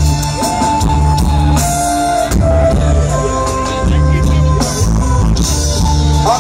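Live band playing loud amplified music through a PA, a bass line pulsing in repeated phrases under sustained keyboard notes with drums: the band's intro vamp while the headline act is brought on.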